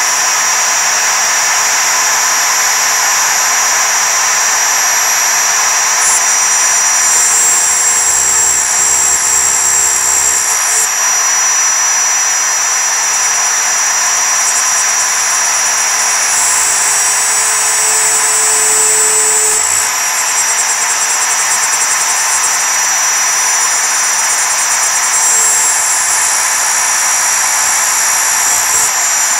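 Desktop CNC (MPCNC) milling 6061 aluminium with a single-flute end mill: the spindle runs at full speed with a steady high whine over the constant chatter of the cutter chipping metal. The higher part of the cutting sound changes every few seconds as the cut goes on.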